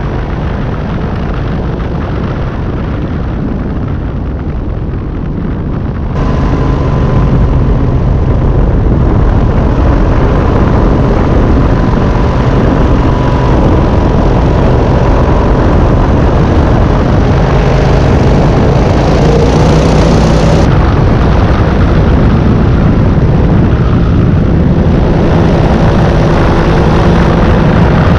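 Powered parachute's engine and pusher propeller running steadily in flight: a loud, even drone with a rushing noise over it, jumping louder about six seconds in.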